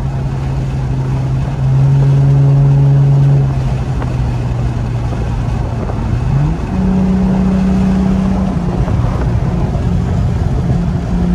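Car engine and road noise heard from inside the cabin while driving: a steady low engine drone that glides up in pitch about six seconds in as the car accelerates, then holds.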